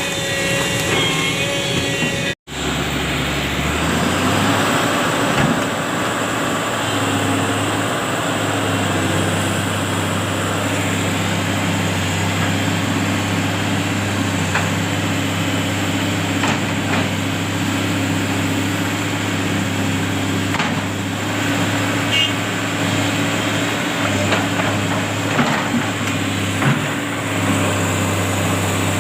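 Heavy diesel machinery engine running steadily at a constant pitch, with a few scattered knocks and clanks.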